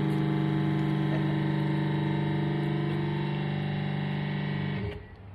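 A loud, steady electrical-sounding buzzing hum with many overtones, unchanging in pitch, that cuts off abruptly near the end.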